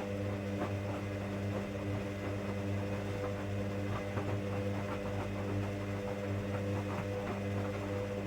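Hoover Daily washing machine running, a steady motor hum made of several held tones with faint irregular ticks and clicks over it.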